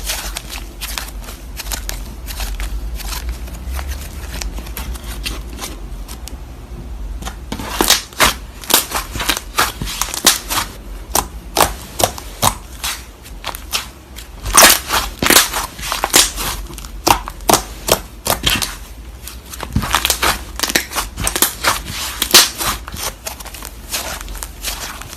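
Slime being squeezed and worked by hand, giving irregular sharp pops and crackles, fainter at first and louder and denser from about eight seconds in.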